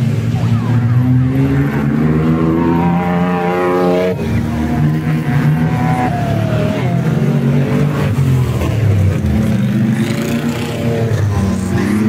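Engines of off-road 4x4 racing prototypes revving hard as they drive through the mud. The pitch climbs up to about four seconds in, drops off, and climbs again a couple of times after.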